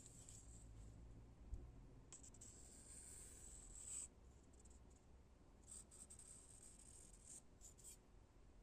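Soft scratching on wood, in hissy strokes: one long stroke from about two to four seconds in, then several short ones near the end.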